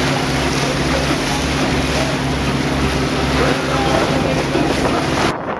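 Catamaran's motor running steadily with a pulsing low drone, under wind on the microphone and water rushing past the hull. The sound cuts off sharply near the end.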